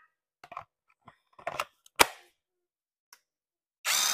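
Small plastic clicks and one sharp snap about two seconds in as a battery pack is locked onto a Himoki 650 Nm cordless impact wrench; near the end the wrench's motor starts running without load.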